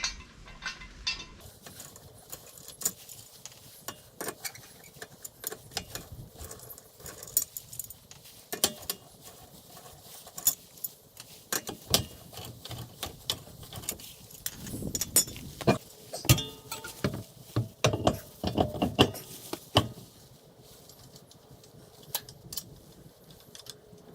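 Irregular metallic clinks and rattles of hardware and tools being handled, with a cluster of heavier knocks in the second half.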